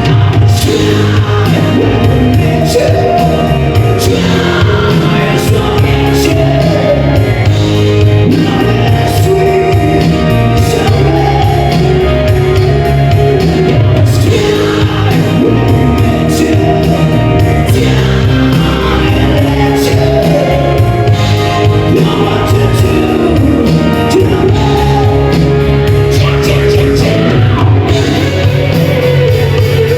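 Live band playing loud music, with a singer's voice over a steady bass and drum beat.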